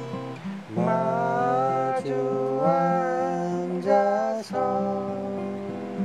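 Two acoustic guitars strumming chords, with a voice singing a melody over them from about a second in until past the middle.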